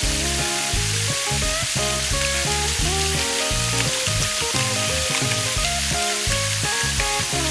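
Background music of held, stepping notes over a steady hiss of rushing stream water.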